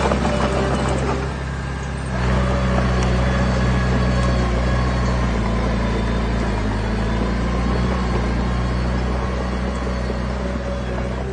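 Diesel engine of heavy earth-moving equipment running steadily under load. It eases off a little after a second in and picks up again at about two seconds.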